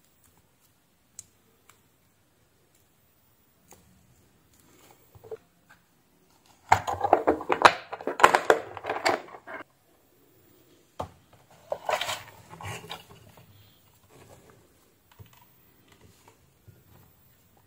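Rummaging in a clear plastic compartment box of heat-shrink tubing: a dense clatter of light plastic pieces for about three seconds, then a second, shorter clatter a few seconds later. Quiet bench handling noise before and after.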